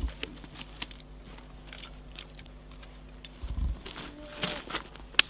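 Scattered light crunches and clicks of boots shifting on gravel and gear rattling, with a low thump about three and a half seconds in and a sharp click near the end, over a faint steady hum.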